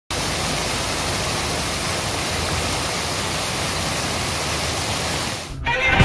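Stream water pouring in a sheet over a concrete ledge into churning water below, a steady, even rush up close that cuts off suddenly near the end.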